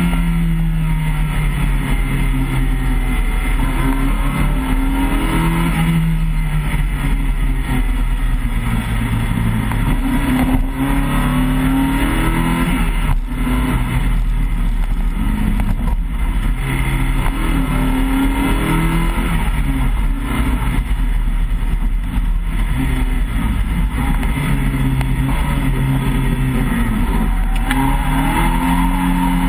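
Opel Manta i200's four-cylinder engine heard from inside the cabin at rally pace, revving up and dropping back again and again as the driver works through the gears and lifts for corners, over a constant low drone of road and drivetrain.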